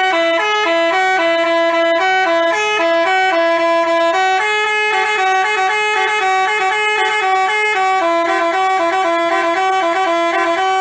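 Basuri telolet bus horn playing a tune: a quick run of stepped notes in two-part harmony, loud and unbroken.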